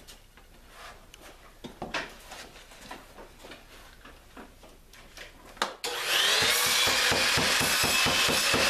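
A claw hammer tapping tacks through a new cedar plank on a wooden canoe hull, in light, scattered taps. About six seconds in, a loud, steady machine noise with a high whine starts and drowns them, with quick taps still going under it.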